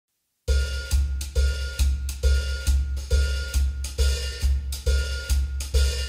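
Background music: a drum-kit beat with kick, snare and hi-hat at a steady, brisk tempo of about two beats a second, starting about half a second in.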